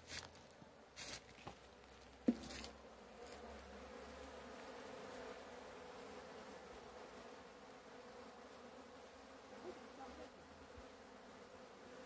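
A honeybee swarm buzzing with a steady low hum. A few sharp knocks in the first three seconds, the loudest about two seconds in.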